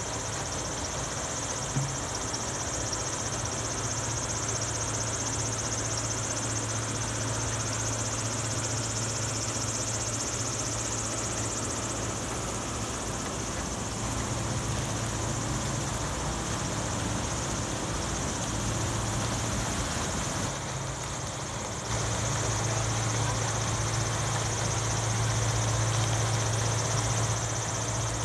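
Steady machine noise: a low engine hum with a high-pitched whine over it, dipping briefly about two-thirds of the way through and coming back louder.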